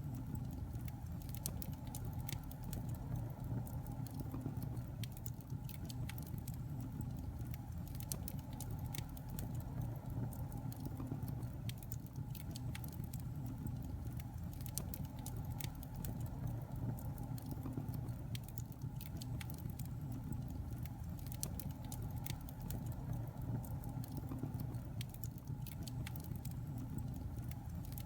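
Wood fire burning in a fireplace: a steady low rumble of flames with frequent small, sharp crackles and pops scattered irregularly throughout.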